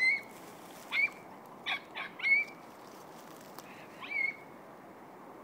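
A young dog yelping in six short, high-pitched cries, five in quick succession and one more about four seconds in. These are the yelps of a dog in pursuit of a rabbit.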